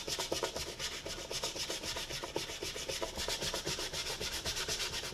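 Nitrile-gloved fingers rubbing wet wood grain filler back and forth across a veneered wooden cabinet top: a quick, rhythmic swishing rub, several strokes a second, pressing the filler into the open grain.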